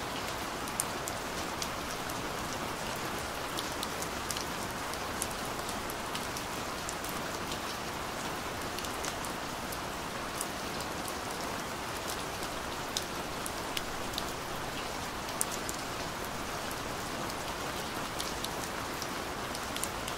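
Recorded rain falling steadily: an even hiss with many scattered sharp ticks of individual drops.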